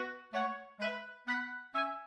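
Background music: a simple melody of single pitched notes, about two a second, each fading away after it sounds.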